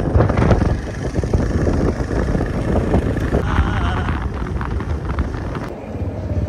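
Wind rushing over the microphone on a moving motorcycle, with the bike's engine and road noise running steadily underneath; it eases briefly near the end.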